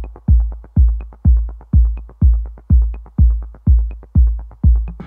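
Electronic dance music with a heavy kick drum about twice a second and quick ticks between the beats.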